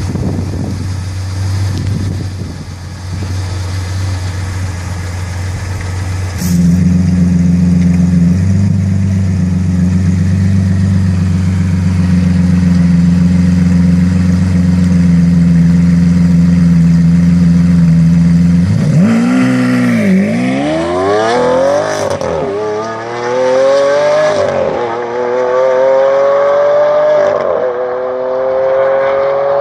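Lamborghini Aventador's V12 running steadily, then held at higher revs for about twelve seconds. Near the end of that it launches and accelerates hard, the pitch climbing through each gear and dropping at quick upshifts roughly every two and a half seconds.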